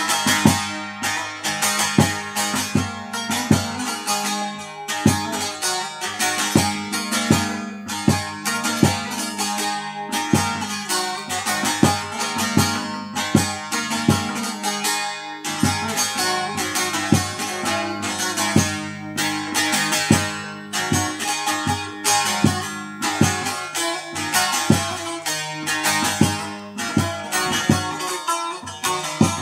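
Bağlama (long-necked Turkish saz) played solo: an instrumental passage of rapidly plucked and strummed notes in a steady rhythm.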